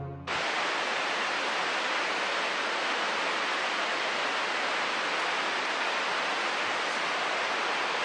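Music stops just after the start, and a steady, even rushing noise sets in: outdoor ambience that does not change in level.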